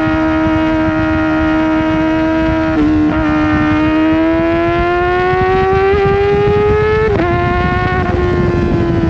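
Kawasaki Ninja ZX-4RR's 399 cc inline-four with a full exhaust, running high in the revs with a steady high-pitched note. It breaks briefly about three seconds in, then climbs in pitch under acceleration and drops suddenly near the seven-second mark at an upshift, then holds and eases down.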